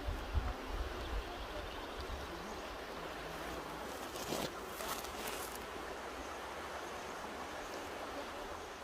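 Mountain river rushing steadily over rocks, with a few brighter splashes about halfway through. Low buffeting of wind on the microphone comes in the first second or so.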